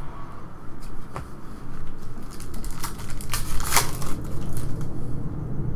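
Hands handling a stack of glossy Panini Prizm trading cards and their wrapper: crinkling and rustling, with a cluster of sharp crackles a little past halfway.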